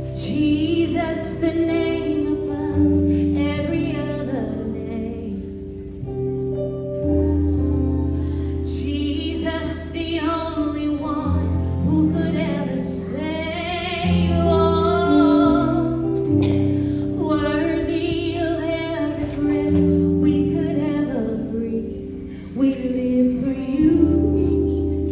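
A woman singing a slow worship song through a microphone over held accompaniment chords that change every second or two.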